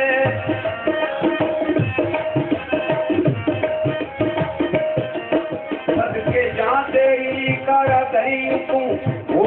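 Instrumental music: tabla playing a steady rhythm under a sustained melodic line.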